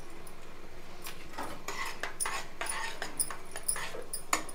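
Metal spoon stirring semolina into milk in a stainless steel kadai, scraping and clinking against the pan in short, irregular strokes with a sharper clink near the end.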